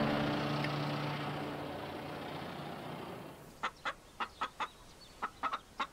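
A hen clucks in a run of about nine short, sharp notes in two quick groups, starting a little over halfway through. Before that, a steady rushing noise fades away over the first three seconds.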